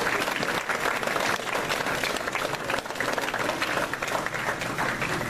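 Audience applauding: many hands clapping at once, a dense, steady patter.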